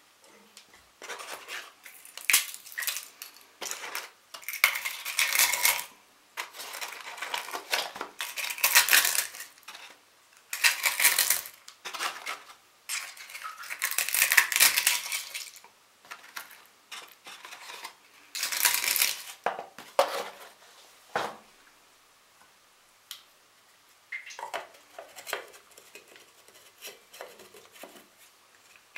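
Eggshells being handled and dropped into the plastic bowl of an electric coffee grinder: irregular bursts of crackling and light clinking, shell against shell and plastic, with short pauses between.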